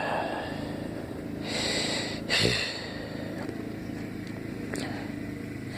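A man sniffing through his nose: a drawn-out, hissy inhale about a second and a half in, then a short snort. These are nasal sniffs while he tickles his nose with a cotton swab to bring on a sneeze, not a sneeze itself.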